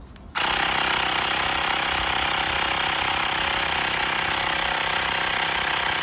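Cordless electric bike pump's small compressor switching on about half a second in and running steadily at one even level, pumping air into a sealed plastic drink bottle already at about 85 psi.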